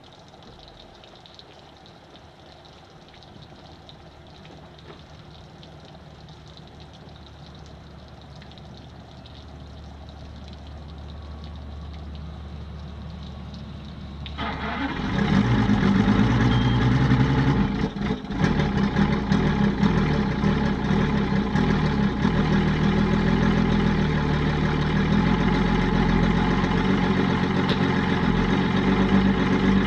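Evinrude E-TEC 250 hp V6 two-stroke outboard cold-starting after sitting three to four months without fuel stabilizer. A faint low hum builds slowly, then about halfway through the engine fires abruptly and settles into a steady idle, with one brief dip a few seconds after it catches.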